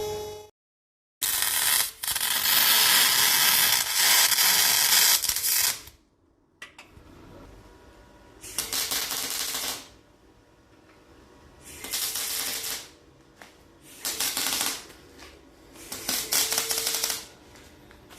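MIG welding on steel exhaust pipe, crackling and spattering. There is one long run of about four seconds, then several short welds of about a second each that start and stop abruptly.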